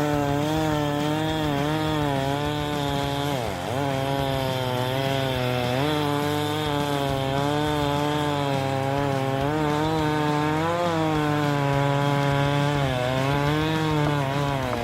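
Chainsaw engine running under load as the chain cuts into a tree trunk, its pitch wavering up and down as the cut bites. The engine briefly bogs down and recovers about three and a half seconds in.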